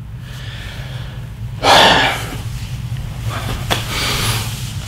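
A man's loud, sharp breath about two seconds in, over a steady low hum, with a single click a little later.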